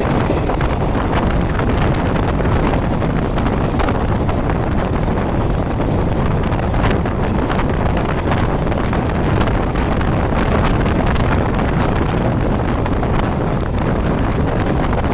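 Strong wind buffeting the microphone over the steady running noise of a moving train, with scattered clicks.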